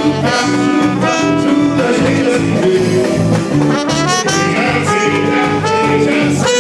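Carnival brass band playing a lively frevo, a trumpet loud and close, over a steady pulsing bass line.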